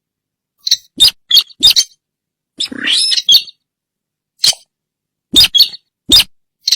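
Loud, recorded call of the sintar bird played as a hunting lure: a string of short, high calls with silent gaps, including one longer call about three seconds in.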